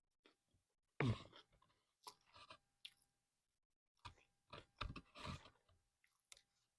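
Close-up chewing of a mouthful of food: irregular wet crunches, the loudest about a second in, with another run of crunches in the second half.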